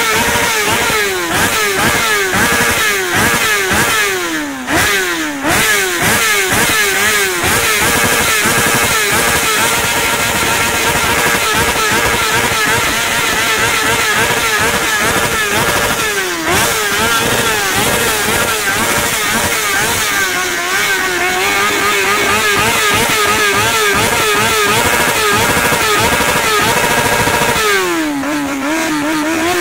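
Honda CBR600F4i inline-four engine revved hard through an aftermarket slip-on muffler: quick throttle blips at first, then held at the rev limiter with the revs bouncing, dropping briefly about midway and again near the end.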